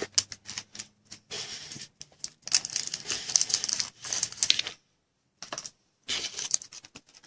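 Trading cards and foil card-pack wrappers being handled: rapid clicking and rustling in several bursts, with a short pause about five seconds in.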